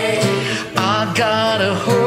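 A mixed choir of men's and women's voices singing a worship song together, in sung phrases with sliding notes.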